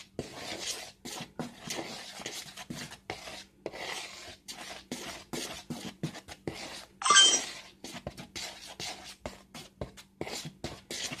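A utensil stirring and scraping a dry flour mixture around a mixing bowl by hand, in quick, irregular scratchy strokes. About seven seconds in, a brief louder ringing sound.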